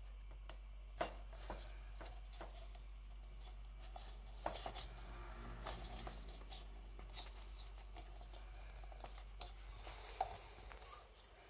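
Scattered small clicks, taps and rubbing as hands thread thin wire through holes in plastic cups, twist it tight and press the cups together, over a steady low hum.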